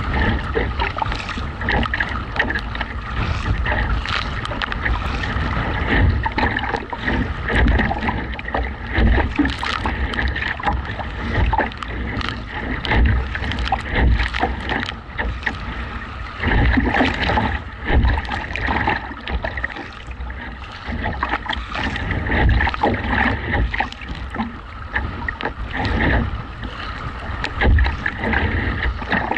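Strong gusty wind buffeting the microphone, with choppy waves slapping a kayak's hull and paddle blades splashing into the water. The loudness rises and falls irregularly.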